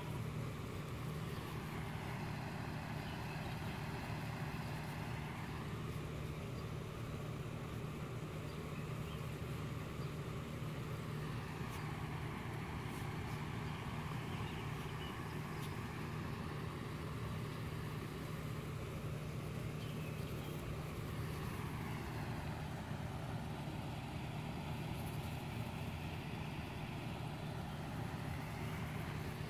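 A steady low mechanical hum with a hiss over it that slowly sweeps up and down in pitch every several seconds.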